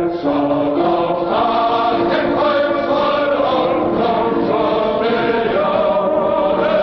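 Choral music: a choir singing a national anthem in slow, sustained chords that change every second or so.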